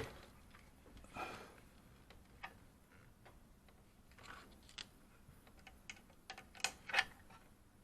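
Faint, scattered clicks and light scrapes of small parts being handled while a cable clamp or connector is worked into place.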